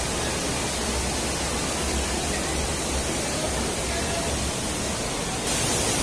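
Steady rushing noise with a low rumble underneath; the hiss turns brighter and a little louder near the end.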